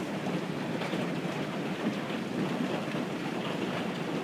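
Hail falling steadily on grass and paving, a continuous hiss of many small impacts.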